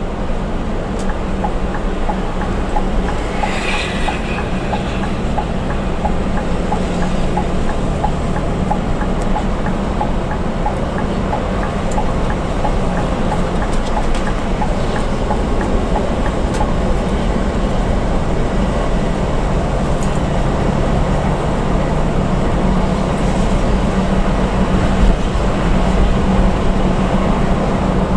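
Steady drone of a bus's engine and tyres heard from inside the cabin while cruising at highway speed. A faint regular ticking about twice a second runs through the first half, and a brief hiss comes about four seconds in.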